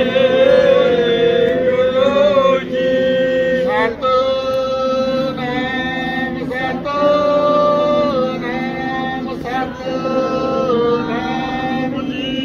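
Devotional chanting: voices sing in long held notes that slide between pitches, with short breaks between phrases.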